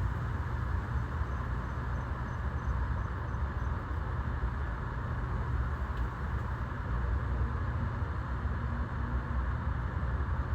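Steady background rumble and hiss with no clear events, unchanged throughout.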